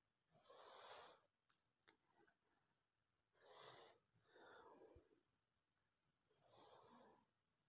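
Near silence, with four faint breaths about a second long each.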